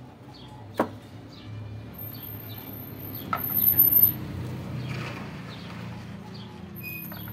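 Electrical tape being unwound from a wire splice by hand: rustling with two sharp clicks, louder for a moment about halfway through. Birds chirp in the background.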